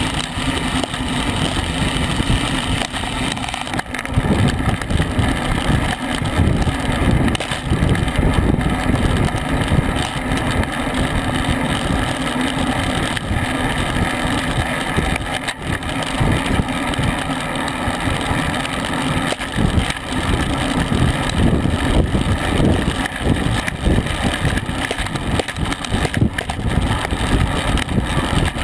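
Wind buffeting a bicycle-mounted camera's microphone at racing speed, about 20 to 25 mph, as a continuous, unevenly fluctuating rumble, with road and tyre noise from the moving bike under it.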